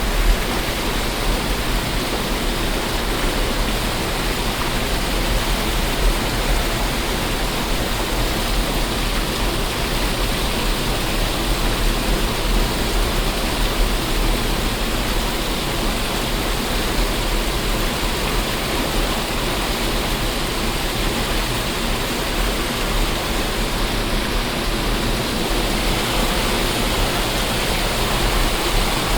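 Waterfall: falling water rushing steadily, without a break, with a low rumble beneath.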